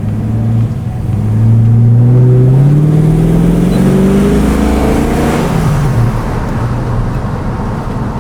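LS V8 engine in a Holden VH Commodore revving: its pitch climbs steadily for about four seconds, then drops back to a steady idle about six seconds in.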